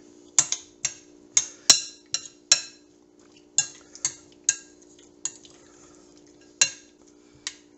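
Metal spoon clinking against a glass bowl as sliced cucumbers are stirred and tossed in their dressing: about a dozen sharp, ringing clinks at an uneven pace, with short pauses, the loudest a little under two seconds in. A faint steady hum runs underneath.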